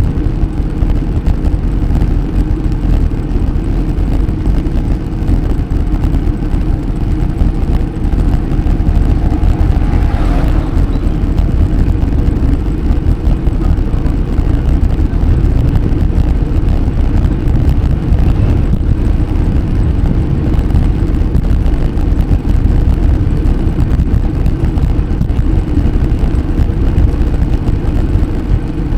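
Loud, steady low rumble of wind buffeting the microphone while cycling, with a brief higher sound about ten seconds in.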